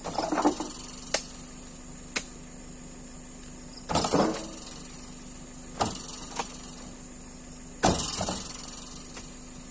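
Three heavy thumps about four seconds apart, each dying away over a second or so, with lighter knocks and a couple of sharp clicks between them, over a steady low hum.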